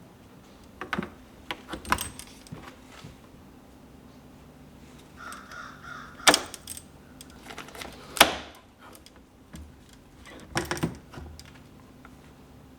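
A series of sharp plastic clicks and knocks: fishing rods being pushed into and pulled out of the clips of a wall-mounted rod holder. The loudest snaps come about six and eight seconds in.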